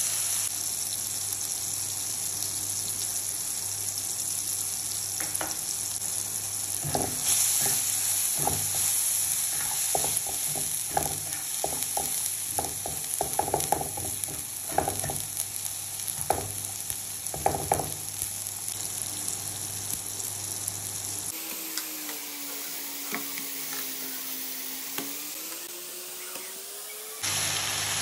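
Diced tomatoes and green chillies sizzling in hot oil in a frying pan. In the middle stretch a spoon scrapes and taps the pan as the masala is stirred. Near the end the sizzle drops away to a quieter stretch with a low hum that dips and then rises in pitch.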